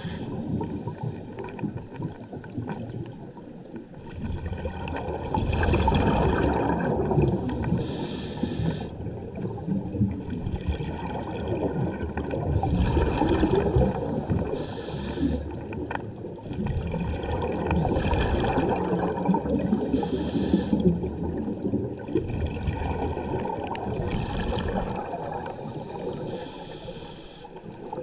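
Scuba diver breathing through a regulator, recorded underwater: slow, regular breaths with a rush of exhaled bubbles, a new breath about every six seconds.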